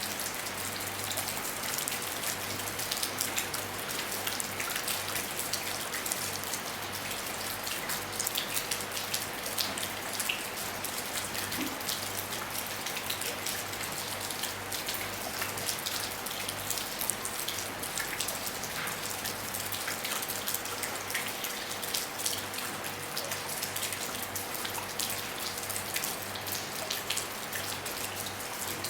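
Steady rain falling on a roof, many small drop hits scattered over a continuous hiss.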